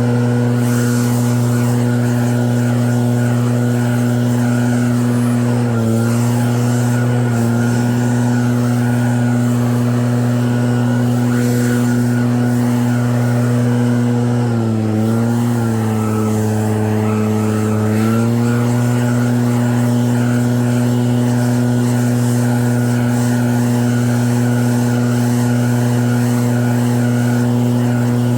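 Snowblower engine running steadily; its pitch dips briefly about six and seven seconds in, and again for about three seconds from around fifteen seconds in, before coming back up to speed.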